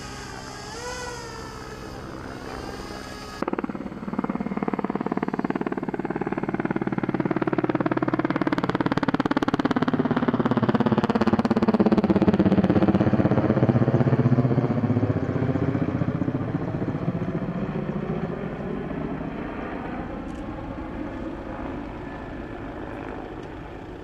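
Firefighting aircraft passing low overhead. Its engine noise comes in abruptly about three and a half seconds in, grows loudest near the middle and fades toward the end, its tone sweeping down and back up as it goes over.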